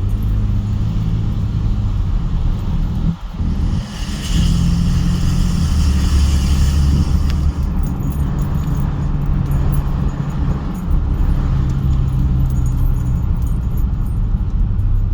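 A 2019 Ford Raptor pickup driving and accelerating with the windows down: a steady low grinding rumble over road and wind noise, dipping briefly about three seconds in. It is the intermittent grinding the truck makes under acceleration, whose cause the dealer has not yet found.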